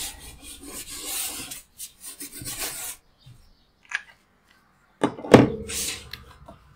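Hands rubbing and pressing a glued cardstock panel flat onto a card base: a dry swishing of skin on paper for about three seconds. A short click comes about four seconds in, then a louder thump with more rubbing just after five seconds.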